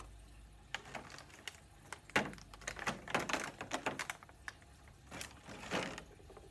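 Trading cards being handled and flipped: a run of irregular light clicks and taps, busiest in the middle.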